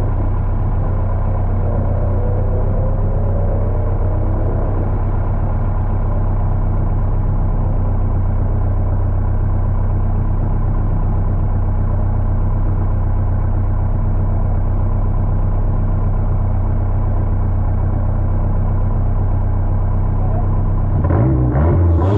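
Nissan D21 pickup's engine idling with a steady low hum. About a second before the end the sound changes sharply and grows brighter as the engine revs and the truck pulls away.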